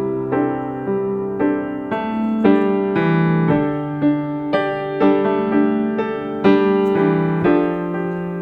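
Background piano music: a calm melody of notes struck about twice a second, each ringing and fading.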